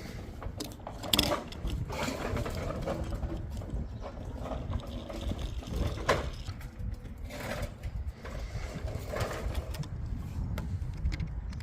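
Toy cars rolling and rattling down a plastic ramp, with a few sharp knocks, the loudest about a second in and about six seconds in.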